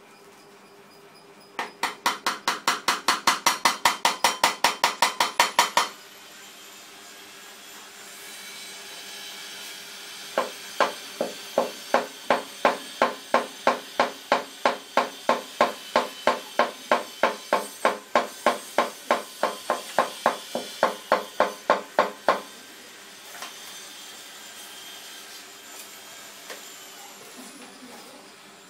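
Quick, evenly spaced taps of a hand tool on ceramic wall tile, as in trimming or setting a tile by hand. There are two runs: a fast one of about five taps a second lasting some four seconds, then after a pause a slower run of about three taps a second lasting some twelve seconds.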